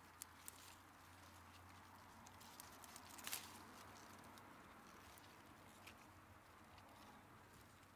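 Near silence, with faint rustling and a few soft clicks as a beetroot plant is handled and pulled from the soil; the sharpest click comes about three seconds in.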